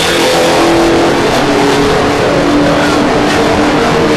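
Touring car engines running at the race circuit, their engine note holding fairly steady and drifting only slightly in pitch over a broad rush of noise.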